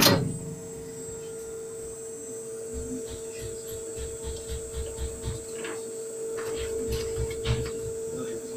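Book thread-sewing machine running: a steady motor hum, with low rhythmic thuds from the sewing mechanism starting a few seconds in and scattered light mechanical clicks.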